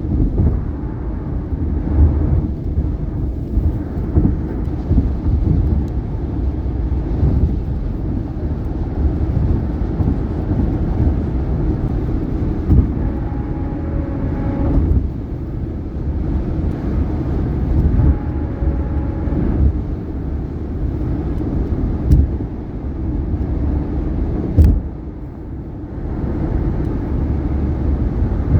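Tyre and road noise of a 2018 Subaru Outback at highway speed, a steady low rumble broken by several sharp thumps as the wheels cross bridge expansion joints.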